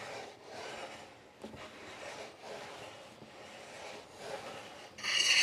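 Budget cast-iron bench plane with a coarse-ground sole being pushed along the edge of a cherry board: faint rubbing strokes, then about five seconds in a loud scraping cut with a metallic ring. The chatter is taken as a thin, poorly supported blade flexing, digging in and bouncing out of the hard wood.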